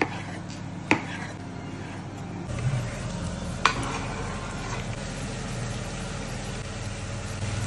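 Chef's knife chopping tomatoes on a bamboo cutting board, one sharp chop about a second in. Then a steady low hum sets in, and diced tomatoes are scraped off the board into a cast-iron pan with one sharp knock.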